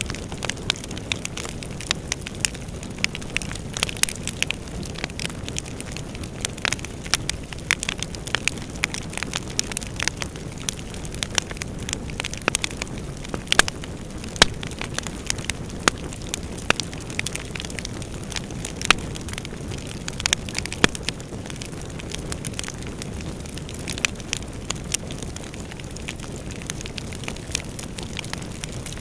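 Bonfire burning, with steady irregular crackles and pops over a low rush of flame.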